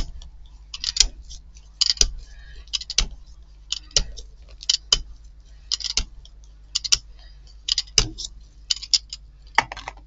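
Rubber brayer rolled back and forth over a magazine page on a gel printing plate, its roller and frame clicking and rattling with each stroke, about once a second.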